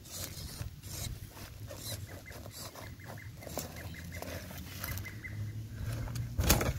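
Brushed 540 electric motor and gears of an RC rock crawler running as its tyres scrabble through dry leaves and plants, with crackling and rustling throughout. A loud knock near the end as the truck is grabbed.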